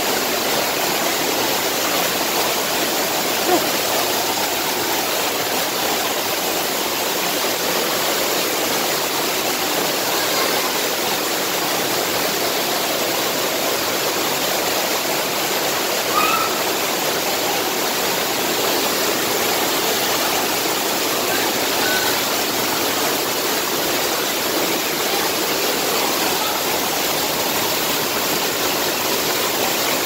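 Creek water pouring over a small waterfall: a steady, loud rush of falling water.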